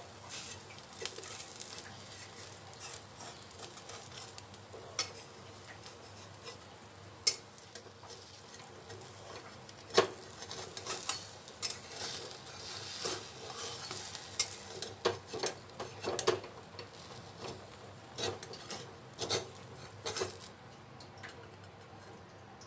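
Metal spatula scraping and tapping against a wok as it loosens the edges of a rice-and-coconut pancake, over a faint steady sizzle. The scrapes and taps come thickest from about ten seconds in and die away near the end.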